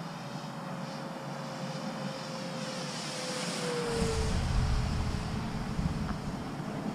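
Electric RC model Spitfire's motor and propeller whining as it flies past, the pitch dropping as it passes overhead about four seconds in. From then on, wind rumbles on the microphone.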